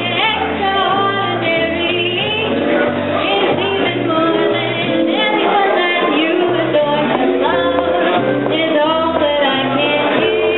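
Live jazz band playing: a woman singing into a microphone over electric guitar, upright bass and drums, the bass moving note by note underneath.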